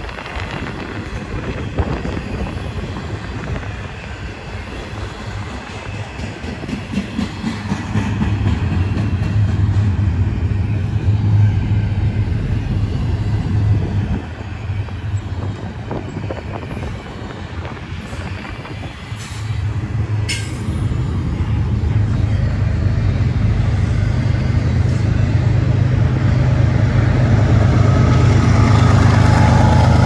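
Double-stack intermodal freight cars rolling past on steel wheels, a steady rumble with a few sharp clicks about two-thirds of the way through. Over the second half a deep diesel rumble grows louder as the train's GE ES44AH distributed-power locomotive approaches.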